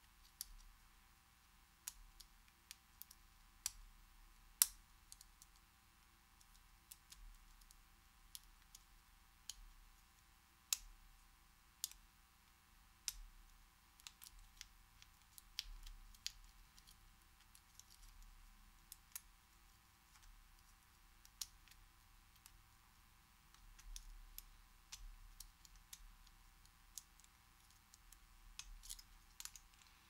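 Faint, irregular metallic clicks and ticks from a hook pick working the pin stacks of a Master Lock No. 15 padlock held under heavy tension while it is single-pin picked. They come singly or a few close together, every second or so, with a couple of sharper clicks among them.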